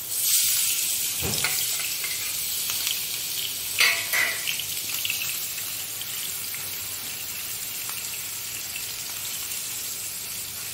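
Tiger prawns coated in salt and turmeric hit hot mustard oil in a nonstick frying pan, setting off a sudden loud sizzle that settles into steady frying. A wooden spatula knocks and scrapes in the pan a couple of times as the prawns are stirred.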